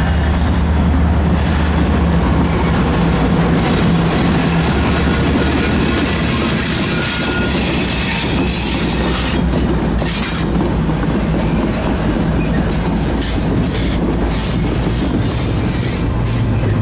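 Norfolk Southern freight train passing close by: the diesel locomotives' engines run with a steady low tone for the first few seconds, then double-stack container cars roll past with continuous wheel and rail noise and a thin, high wheel squeal about four to eight seconds in.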